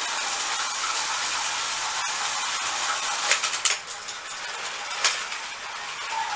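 Battery-powered Plarail toy trains running on plastic track: a steady whirring of small motors and wheels, with a quick cluster of clicks and clatter about three and a half seconds in and another click about five seconds in.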